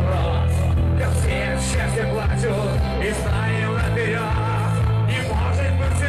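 Rock song with singing over a steady bass line.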